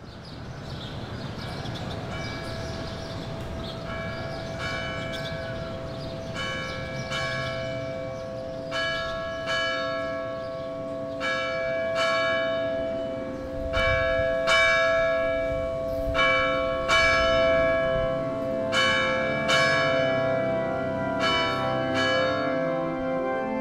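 Church bells ringing. Strike follows strike roughly once a second, each ringing on and overlapping the next, with a lingering low hum underneath.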